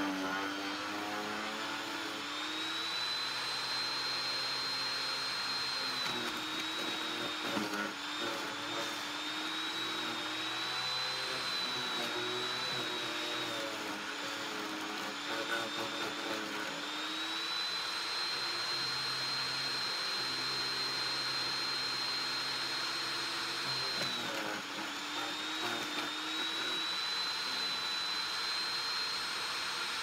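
Harbor Freight corded electric chipper shredder running and chewing leafy branches fed into its hopper. Its high, steady motor whine sags in pitch and recovers several times as it takes each load, with a few short cracks of wood.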